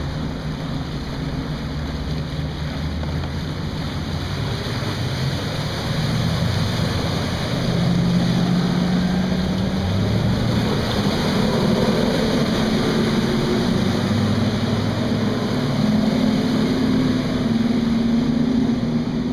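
Outboard motors of tournament fishing boats running on the water, mixed with wind and splashing wake. The engine sound swells about six to eight seconds in and stays loud.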